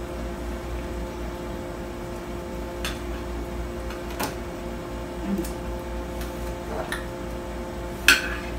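A few light clinks of forks and knives against dinner plates, the loudest near the end, over a steady room hum.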